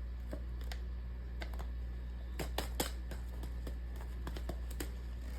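Scattered light clicks and taps from handling paper craft pieces, most of them bunched near the middle, over a steady low hum.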